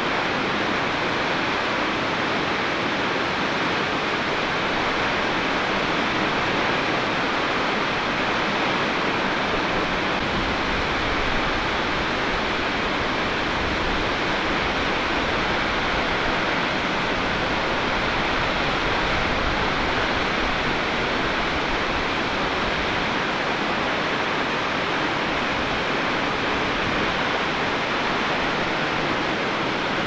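Shōmyō Falls and the neighbouring Hannoki Falls: the steady, unbroken rush of a tall waterfall's water plunging onto the gorge floor.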